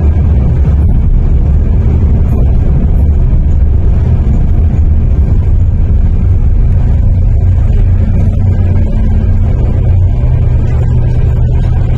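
MTR K-Train electric multiple unit running through the tunnel, heard from inside the carriage: a loud, steady low rumble of wheels on rail and traction equipment, with a faint steady hum joining in about two-thirds of the way through as the train draws into its terminus.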